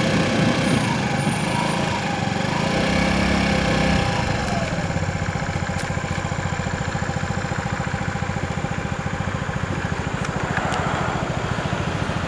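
Motor vehicle engine running while driving, with a fast, even throb from about four seconds in.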